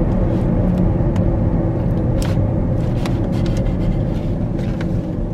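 Car engine running, heard from inside the cabin as a steady low rumble, with a few light clicks.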